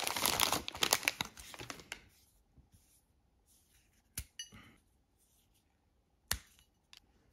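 Plastic chocolate-bar wrapper crinkling as it is pulled open, for about two seconds. Then two sharp snaps about two seconds apart as pieces are broken off a Cadbury Breakaway block of chocolate-covered wafer, with a small click after the second.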